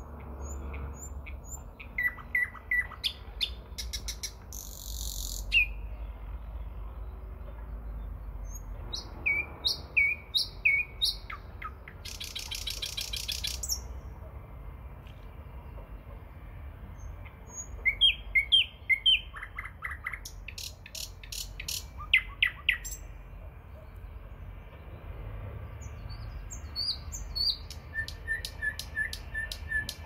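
Nightingale singing in separate phrases with pauses between them: runs of repeated piping notes, short whistles and dry, rapid rattling trills, over a low steady rumble.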